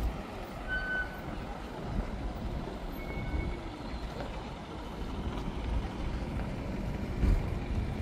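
City street ambience: a steady low rumble of passing traffic, with a couple of short high beeps.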